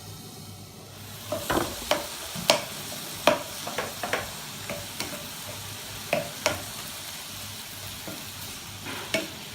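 Minced boneless chicken sizzling in oil in a pan as it cooks just until it changes colour, stirred with a spoon that clicks and scrapes against the pan at irregular moments. The sizzle grows louder about a second in.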